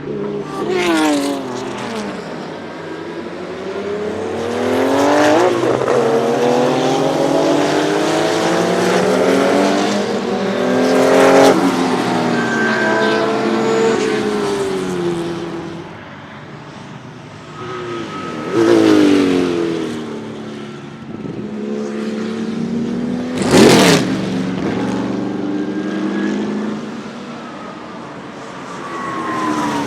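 Porsche 935 K3 racing cars with 3.2-litre twin-turbo flat-six engines passing at speed several times, the engine note rising and falling with each pass. Sharp cracks come in among the passes, the loudest near the end.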